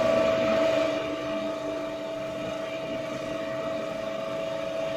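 A lift car travelling in the shaft, its drive running with a steady hum and a whine for about five seconds. It starts and cuts off abruptly.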